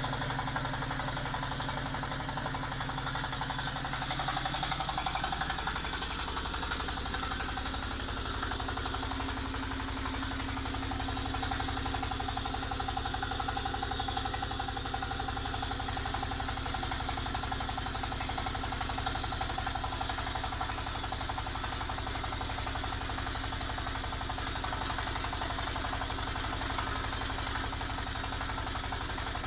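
Diesel engine of a small hydraulic water-well drilling rig running steadily while drilling, with its note shifting about five seconds in and then holding.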